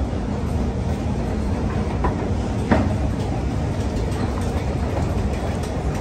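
Steady low mechanical rumble of a running escalator, with a single sharp knock about halfway through.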